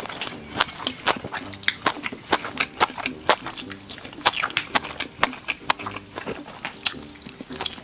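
Close-miked chewing of stir-fried instant noodles with vegetables: a dense, irregular run of quick wet mouth clicks and small crunches.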